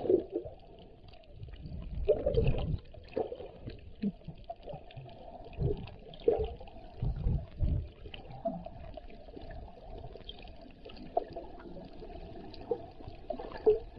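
Muffled underwater water noise picked up by a camera held below the surface while snorkelling: irregular sloshing swishes and dull bumps from movement in the water, with a few stronger surges.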